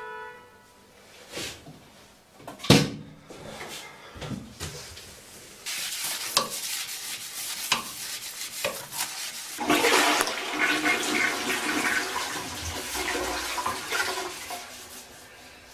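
A toilet flushing. A few sharp knocks come in the first seconds, the loudest about three seconds in, then water rushes through the bowl, loudest in the middle and tapering off near the end.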